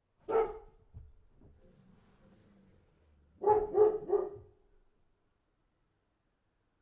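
A dog barking: a single bark near the start, then three quick barks in a row about halfway through.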